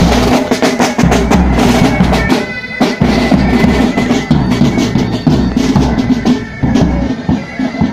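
Military pipe band playing: bagpipes holding a steady drone while snare drums rattle and a bass drum beats, the bass drum dropping out briefly about two and a half seconds in.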